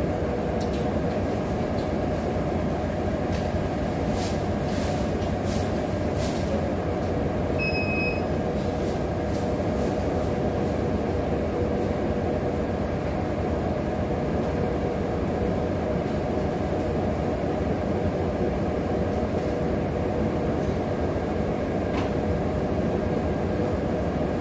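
Steady rumbling background noise with a constant hum, unchanging throughout, with a short electronic beep about eight seconds in and a few faint clicks shortly before it.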